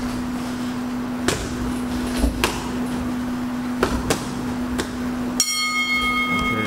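Boxing gloves landing punches in close-range sparring: sharp slaps and thuds, about seven over the first five and a half seconds, over a steady low hum. Near the end a steady high ringing tone sets in.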